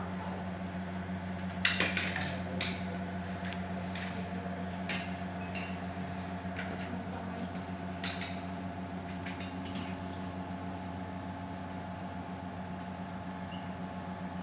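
A steady low mechanical hum with a few short clicks and knocks scattered through it, the loudest about two seconds in.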